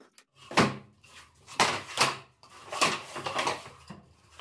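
Long plywood strips being handled on a wooden workbench: several sharp wooden knocks with scraping between them.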